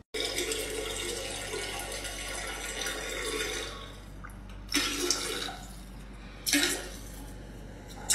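Water rushing steadily for about four seconds, then dying down, with a few short, louder sounds around five and six and a half seconds in.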